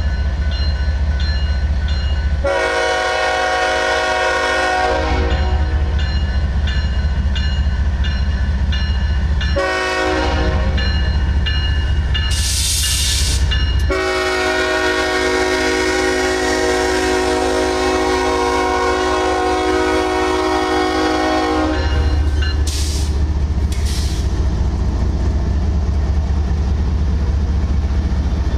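Diesel freight train's lead locomotive sounding its horn as it passes: a long blast, a short one, then a long blast of about eight seconds. Under it runs the steady rumble of the locomotive engines and the rolling cars, with a few short hisses.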